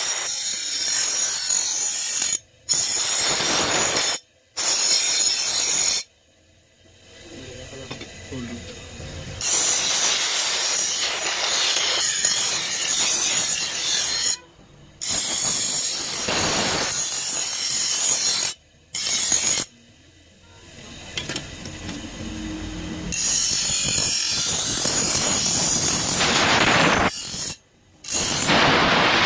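Bench grinder wheel grinding the edge of a steel sickle blade: a loud, harsh hiss, broken by several sudden cuts and two quieter stretches.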